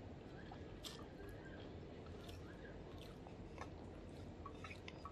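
Faint chewing of instant fried noodles, with soft, scattered wet mouth clicks.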